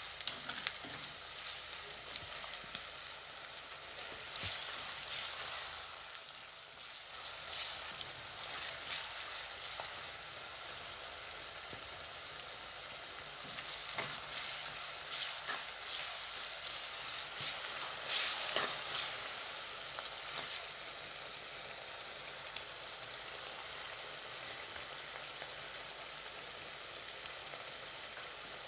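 Sliced onions, green chillies and curry leaves sizzling in oil in a black chatti, sautéing with salt to soften. A steel spoon stirs and scrapes the pot in spells, in the first several seconds and again midway, and a steady sizzle fills the rest.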